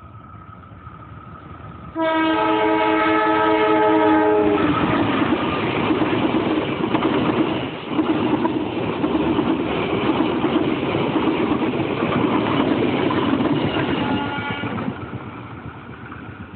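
CC 204 diesel-electric locomotive sounding its horn, one blast of about two and a half seconds on a chord of several tones. Then the locomotive and its train of coaches pass close by with a loud rush of engine and wheels on the rails, with clickety-clack, fading away near the end.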